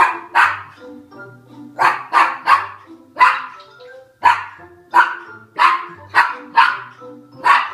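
Papillon barking repeatedly at dogs on a television screen: about a dozen sharp, high barks in uneven bursts, some in quick pairs and triplets.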